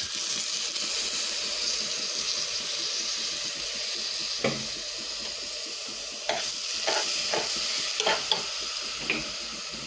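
Rice sizzling as it goes into the hot pot to be fried for pulao, then stirred with a metal spoon that knocks against the side of the metal pot several times in the second half.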